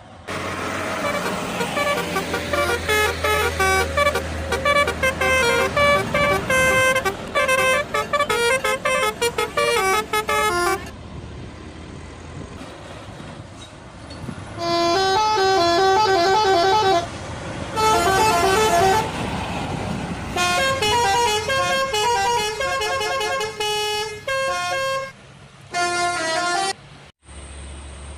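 Indonesian bus 'telolet' musical air horns playing fast melodies of quickly changing notes, in several long runs with a lull of a few seconds about halfway, over a low engine hum.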